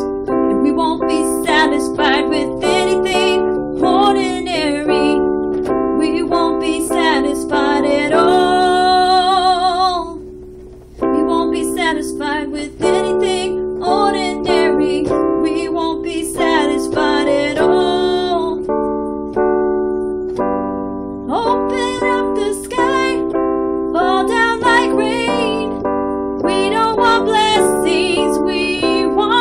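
A woman singing a slow worship song over sustained instrumental chords, her voice wavering with vibrato. The music drops away briefly about ten seconds in, then resumes.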